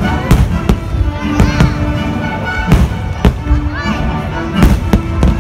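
Aerial fireworks shells bursting overhead: about half a dozen sharp bangs, roughly a second apart, over loud show music.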